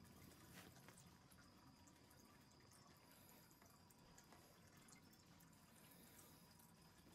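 Near silence: faint room hiss with a couple of soft ticks.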